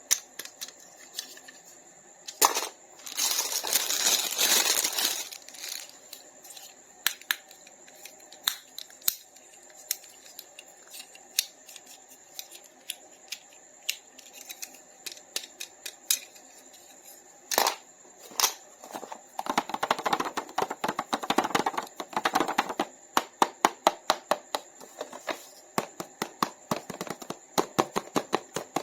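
Toy packaging being handled and opened: scattered sharp clicks and taps, with a spell of rustling or tearing a few seconds in and another past the middle, then a run of quick clicks.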